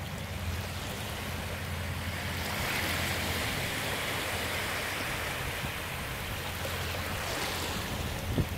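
Small waves lapping and washing over sand at the water's edge. A wash swells about two and a half seconds in and eases off again, over a steady low rumble.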